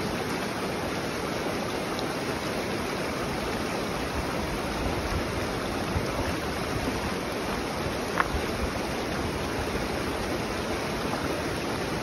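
Shallow, clear mountain stream rushing steadily over stones, with a couple of light knocks as plastic bottles are wedged between the stones in the water.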